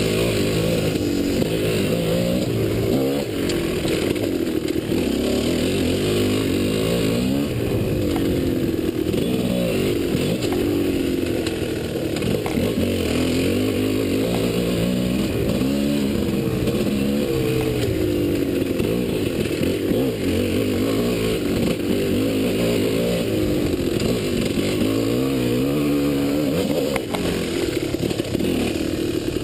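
Enduro dirt bike engine running under riding load, its pitch climbing and falling again and again as the throttle is worked.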